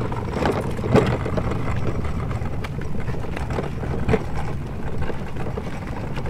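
Hard plastic wheels of a Little Tikes Princess Carriage ride-on rolling over a concrete path: a steady rumble with a few sharp knocks and rattles, one about a second in and another about four seconds in.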